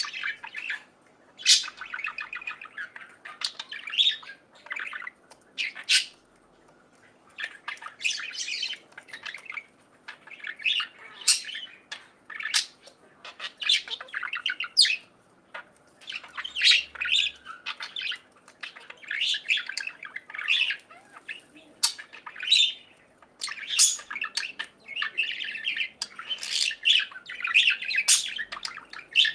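Budgerigars chirping and chattering in bursts, with sharp high calls mixed in and short pauses between.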